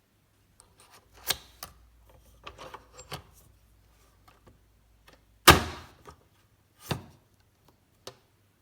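A series of separate sharp clicks and knocks, about half a dozen, as of hard objects being handled. The loudest comes a little past halfway and is followed by a short rattle.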